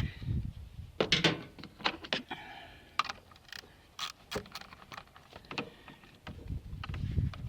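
Irregular clicks, knocks and light metallic clanks as a car battery is worked loose and lifted out of the engine bay, with a low rumble near the end.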